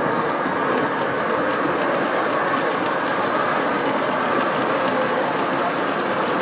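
O gauge model steam train running along the track, a steady rumble and rattle of wheels on rail, mixed with the even background noise of a large hall.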